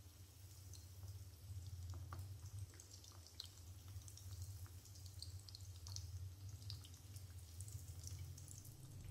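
Breaded chicken cutlets frying in hot oil: faint, scattered crackling and popping over a steady low hum.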